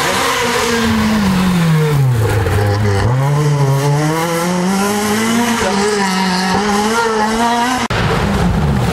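Rally car engine at full stage pace: the note drops sharply as the car slows for a bend, then climbs again in steps as it accelerates away through the gears. It cuts off abruptly near the end, where another car's engine takes over.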